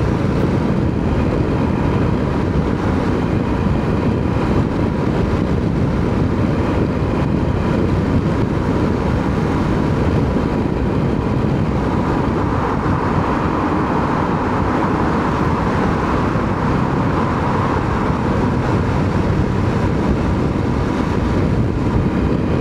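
KTM 890 SMT motorcycle, a parallel-twin, cruising at a steady speed: continuous engine, road and wind noise on the rider's microphone. A higher hum swells and fades again about halfway through.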